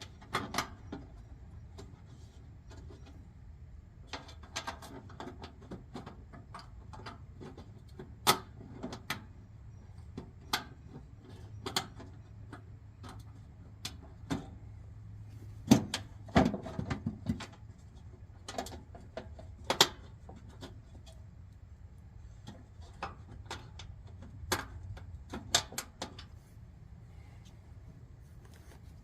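Hand work on a forced-air heater: irregular clicks, knocks and light metal clatter of tools and parts being handled, with a few sharper knocks midway. A steady low hum runs underneath.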